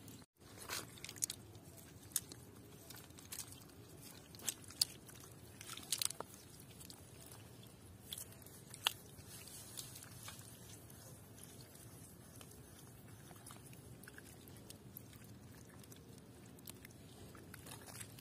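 Hands picking small shrimp out of wet mud and leaf litter on a fishing net: faint, irregular wet clicks and crackles. The clicks are thickest in the first half, over a low steady background noise.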